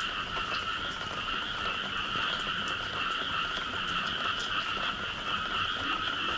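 Dense chorus of many frogs calling after rain, a steady, unbroken wall of high calls, with a few faint ticks over it.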